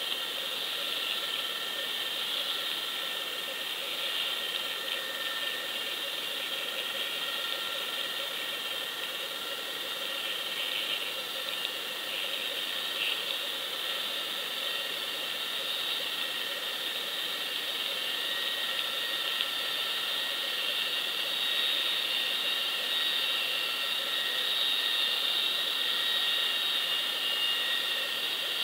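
Steady underwater drone heard through a submerged action camera's housing: an even hiss with a constant high-pitched whine and a few fainter steady hums.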